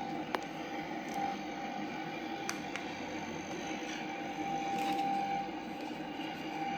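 Electric fabric-cutting machine running steadily with a held motor hum, with a few light clicks along the way.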